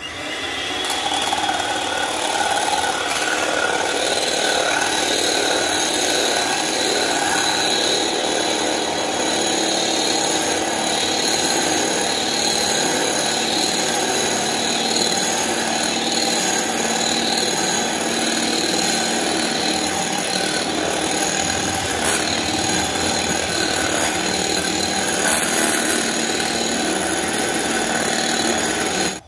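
Electric hand mixer running at a steady speed, its beaters whipping chilled whipping cream in a glass bowl up to soft peaks. The motor comes up to speed in the first second and is switched off suddenly near the end.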